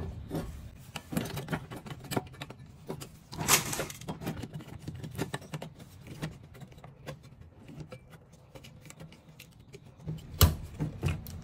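Hands working a computer power supply's circuit board and wires in its sheet-metal casing: irregular small clicks, rattles and scrapes, with a louder scrape about three and a half seconds in and a sharp knock near the end.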